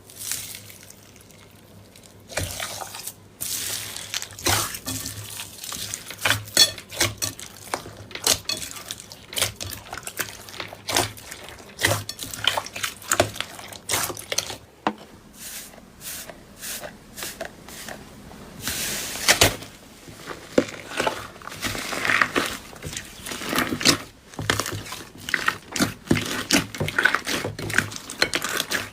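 Slime being squeezed and poked by hand, making wet, sticky clicks and pops in quick, uneven succession.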